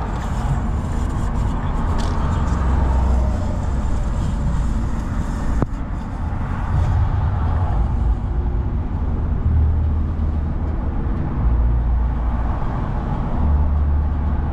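Car cabin road noise while driving on a highway: a steady low rumble of tyres and engine.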